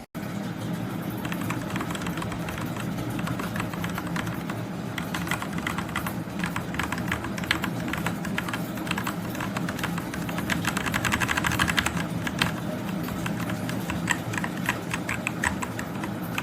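Typing on a Machenike K500 mechanical keyboard: a rapid, uneven stream of key clicks that grows busiest about ten seconds in.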